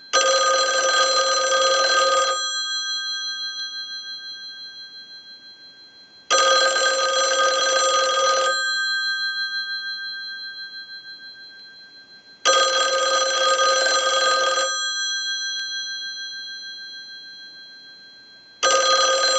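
A single slot payphone's ringer bells ringing on an incoming-call ring cycle sent from a test analyzer: four rings of about two seconds, roughly six seconds apart, each ringing on and fading between rings. The payphone's ringer is working.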